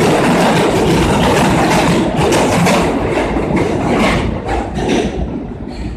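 R160 Siemens subway train pulling out of the station, its rumble and wheel clatter loud as the last cars pass, then fading from about four seconds in as the train goes off down the tunnel.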